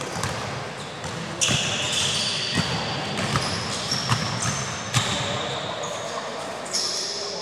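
Futsal players' shoes squeaking on the indoor court several times, short high squeals about a second and a half in, around five seconds and near the end, with the ball thudding off feet and floor in between, in a large hall.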